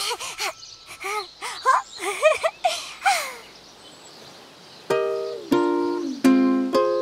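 Ukulele strummed in four ringing chords, starting about five seconds in. Before it comes a run of short sliding calls and a brief quiet gap.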